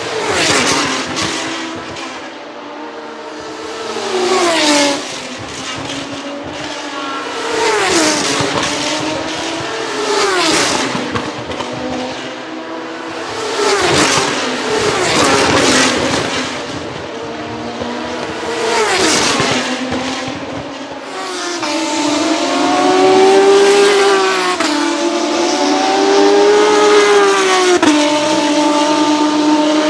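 Dallara GP3 single-seaters with V6 engines passing one after another at racing speed, each engine note dropping sharply as the car goes by. In the last third one car's V6 is heard without a break, its pitch rising and falling in long sweeps.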